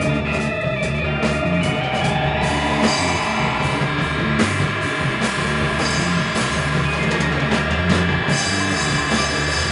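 Instrumental rock band playing: electric guitar over drum kit and electric bass, with a held lead note sliding upward about two seconds in.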